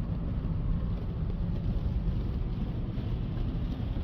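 Steady road and engine noise heard inside a moving car's cabin, a low rumble with no distinct events.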